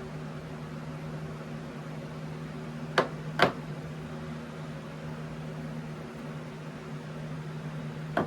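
Steady machine hum of a running appliance, with two sharp clicks about three seconds in, half a second apart.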